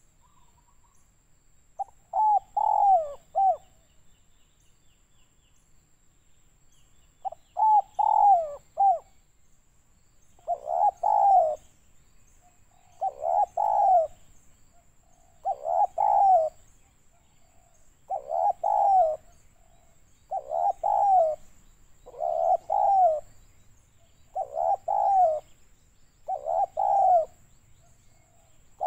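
Spotted dove (tekukur) cooing: ten short multi-note phrases, the first two about five seconds apart and the rest repeated regularly about every two and a half seconds.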